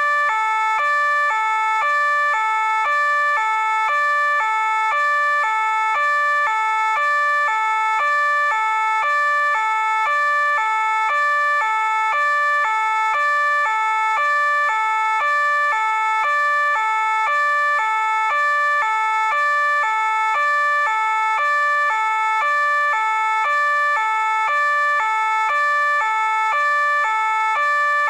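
French police two-tone siren, alternating steadily between a higher and a lower note, each held about half a second.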